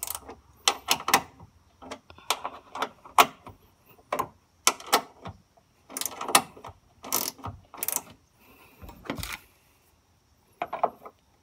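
Ratchet wrench clicking in short, irregular runs as the bolts of a new car door check assembly are tightened.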